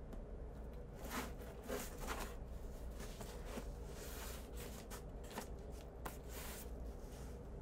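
A cardboard mailer box being handled and cut open with scissors: scattered scrapes and rustles of cardboard and tape.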